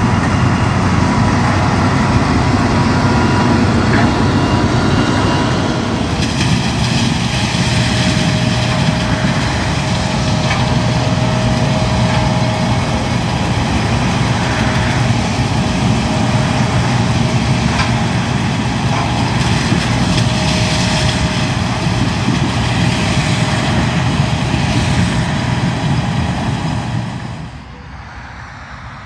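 John Deere combine harvester running while harvesting grain maize: a steady, loud mechanical drone with a thin whine above it and occasional crackling. The sound drops sharply to a much quieter level near the end.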